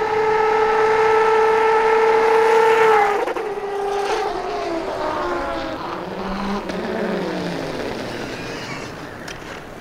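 Whine of the 1000 W electric hub motor on a converted kids' 50cc dirt bike at speed, holding one high pitch. About three seconds in it wavers, then slides lower and fades as the bike slows down.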